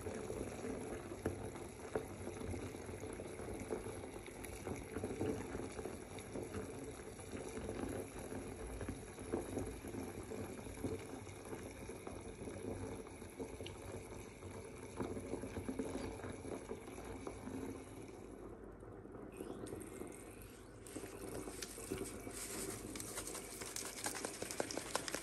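Water running from the tap into a bathtub covered in bubble-bath foam: a steady rush of filling water with the fizz of bubbles.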